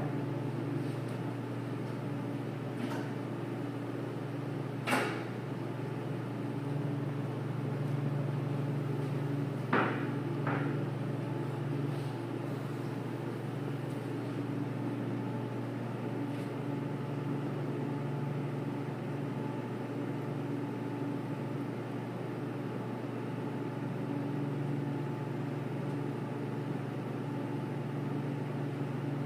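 Band saw being taken apart by hand: a few short metallic knocks and clanks in the first eleven seconds, the loudest about five seconds in and two close together near ten seconds, over a steady low hum.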